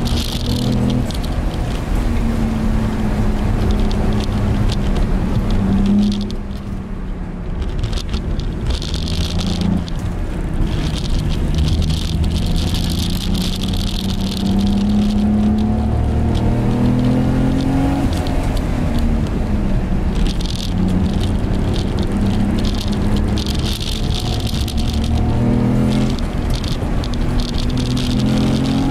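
Infiniti I30's 3.0-litre V6, heard from inside the cabin under hard driving. It revs up and falls back repeatedly through shifts and corners, and the engine note drops briefly about six seconds in.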